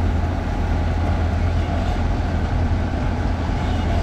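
Kubota rice combine harvester's diesel engine running steadily, a heavy low drone.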